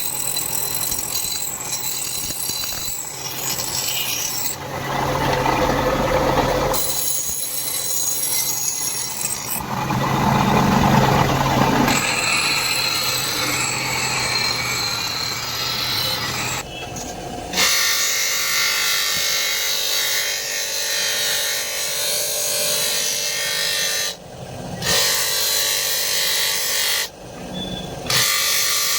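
A tool steadily working the dagger's steel, rasping with a steady hum underneath, as the blade is shaped and finished. It gets louder twice in the first half and breaks off briefly a few times in the second half.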